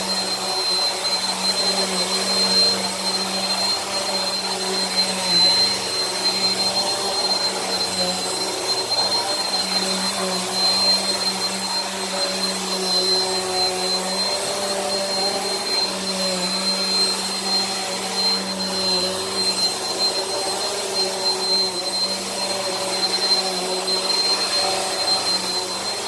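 Bissell Powerforce Helix upright vacuum cleaner running steadily while vacuuming carpet: a continuous motor drone with a steady high whine over it.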